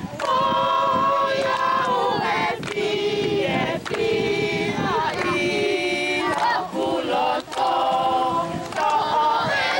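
Group of voices singing together in harmony, notes held and sliding, to an acoustic guitar, with a few hand claps.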